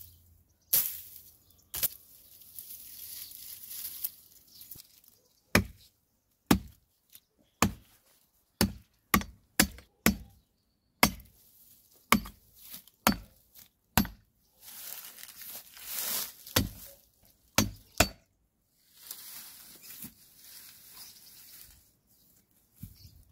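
A machete chopping into the wood of a thorny tree stump: about eighteen sharp, irregular blows, coming faster in a quick run around the middle.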